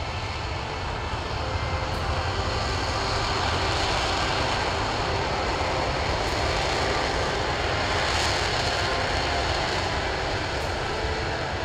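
RS-25 liquid-hydrogen/liquid-oxygen rocket engine firing on a test stand during a certification static fire: a steady, dense rushing noise from the engine running at sustained thrust.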